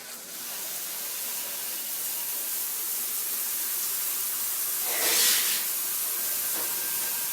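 Water spraying from a shower head, a steady hiss that starts suddenly and swells louder for a moment about five seconds in.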